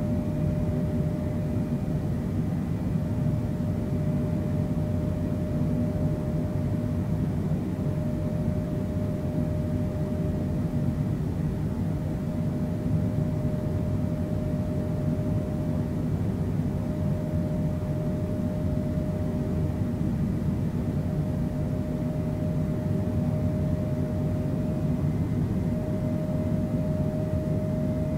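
Boeing 767's jet engines running steadily, heard from inside the cabin: an even rush of engine noise with one held tone that rises slightly near the end.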